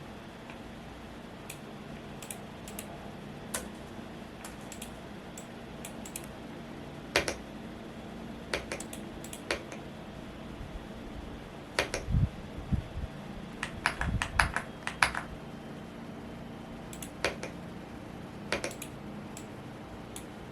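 Intermittent typing on a Womier S-K71 mechanical keyboard: scattered single keystrokes, with a quick run of several about two-thirds of the way through and a few low thuds among them. A steady fan hum runs underneath.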